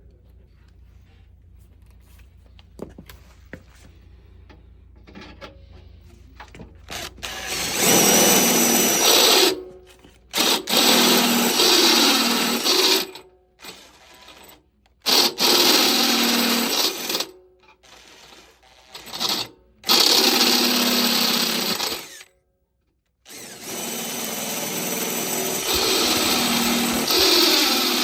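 Power drill with a step bit boring holes in a central vacuum power unit's housing, run in a series of stop-start bursts of a few seconds each from about eight seconds in. Before that, only faint handling clicks.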